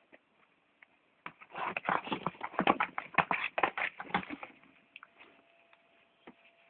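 A cat scrabbling and shuffling in a box: a dense run of quick scratchy rustles lasting about three seconds, then a few faint taps.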